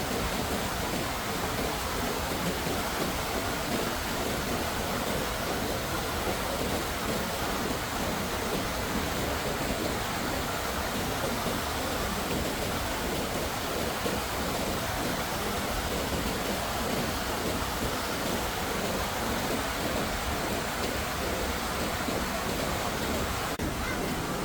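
Steady, even rushing noise of heavy water, rain or flood flow, with no separate events in it.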